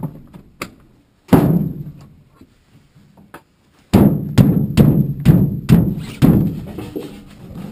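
Heavy blows struck at a small wooden shed: one hard thud, then a run of six blows about two a second, each with a short hollow ring.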